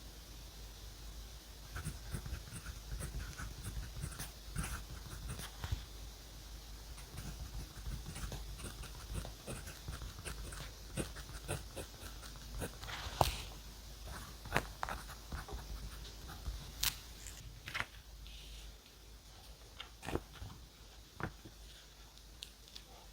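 Pen-and-paper journaling sounds: irregular scratchy strokes on paper with scattered small taps and clicks, a sharper click about thirteen seconds in.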